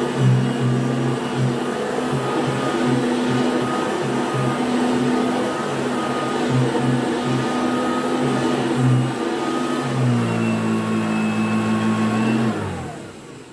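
1979 Goblin Housemaid GL888 upright vacuum cleaner running on carpet, its motor and brush noise pulsing as it is worked back and forth. About ten seconds in its note steadies. Near the end it is switched off and the motor winds down, falling in pitch and fading out.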